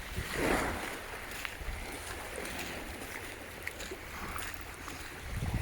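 Shallow sea water sloshing and lapping, with one louder swish of water about half a second in and small faint splashes after it. Low wind rumble on the microphone builds near the end.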